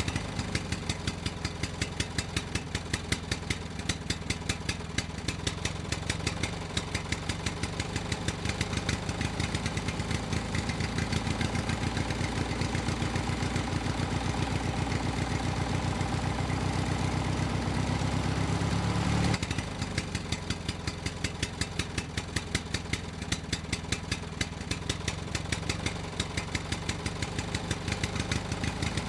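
Tractor engine running steadily with a fast, regular putter. About 19 seconds in, the sound cuts abruptly to a lighter version of the same running.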